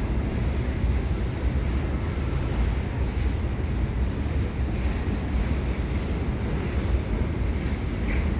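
DDB1 diesel train's engine running with a steady low rumble.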